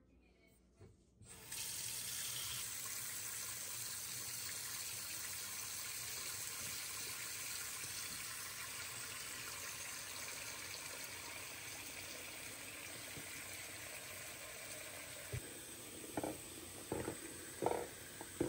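Kitchen tap turned on about a second in, running steadily into a stoppered sink as it fills with soapy dishwater. Near the end, a few short knocks and clinks as glass jars are set down in the sink.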